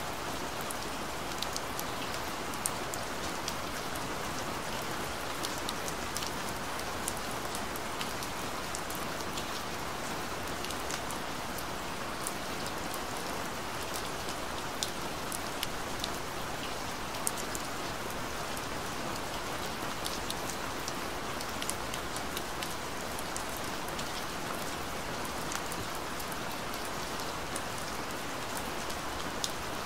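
Steady rain: an even hiss of falling rain with many small, sharp drop ticks scattered through it.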